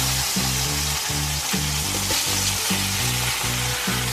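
Floured beef steaks sizzling steadily in oil in a stainless steel frying pan as they are lifted out with a spatula, over background music with a steady beat.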